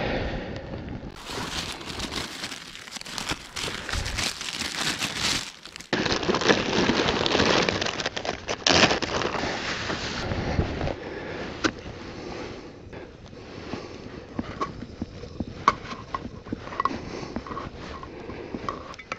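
Plastic bag crinkling as it is handled, then a run of short metallic clicks and scrapes as a small hand can opener works around the rim of a tin can.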